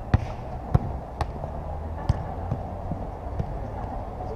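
Sharp thuds of a football being kicked during play, about six in four seconds, the first two the loudest, over a steady low hum.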